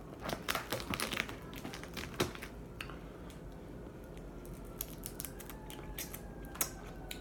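Boiled crab leg shells cracking and snapping as they are broken apart and picked by hand: a quick run of sharp clicks in the first two seconds, then scattered ones. A distant ambulance siren sounds faintly from about five seconds in.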